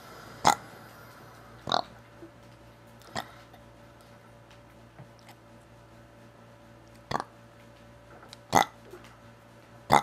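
A boy burping in short, separate burps, one after another: about six in all, three in quick succession, a pause of a few seconds, then three more.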